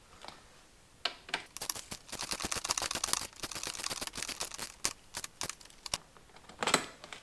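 Ratchet wrench clicking rapidly in runs as a fastener is run down by hand, with a few louder knocks, the loudest near the end.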